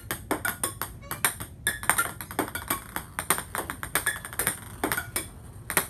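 Ping-pong balls bouncing on a hard floor: a rapid, irregular series of light, ringing clicks.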